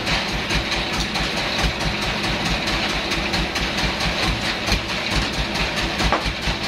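Band sawmill's drive engine running steadily, with a fast, even low throb under a constant machine noise.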